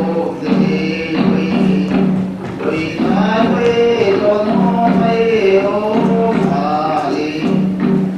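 Men's voices singing a Japanese folk chant in long sung phrases, the song that accompanies a mochi-pounding dance.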